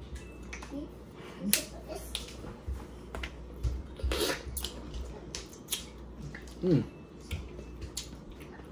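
Crab-leg and lobster shells being cracked and pulled apart by hand: a string of sharp, irregularly spaced snaps and clicks, the loudest about four seconds in.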